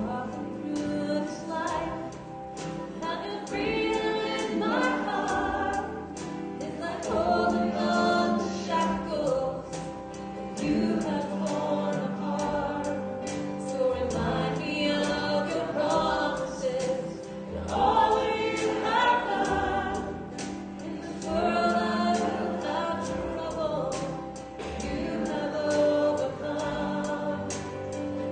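Live worship band playing a song: voices singing together over guitars and a keyboard, the singing coming in at once after a quieter guitar lead-in.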